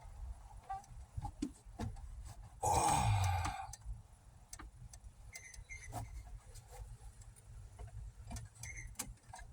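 Scattered light clicks and taps, with a loud sigh-like exhale that falls in pitch about three seconds in.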